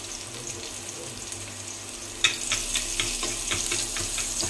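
Garlic frying in hot oil in a pan with a steady sizzle; about two seconds in, sharp crackles and pops set in, the first the loudest.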